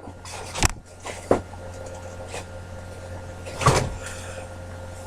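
A few separate knocks and clunks over a steady low hum. The loudest knock comes about three and a half seconds in.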